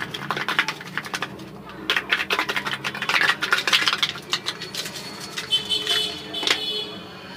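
Black salt shaken from a small plastic shaker over boiled sweet potato pieces on a plate: rapid rattling clicks in two bursts, easing off after about four seconds.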